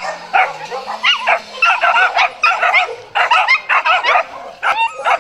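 A dog yapping and yipping in a rapid string of short, high calls whose pitch bends up and down, about three or four a second, with brief pauses.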